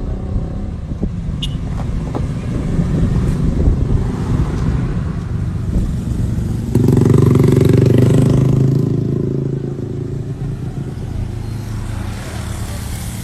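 Road traffic: a motor vehicle's engine passes close, loudest about seven to nine seconds in, over a steady low rumble.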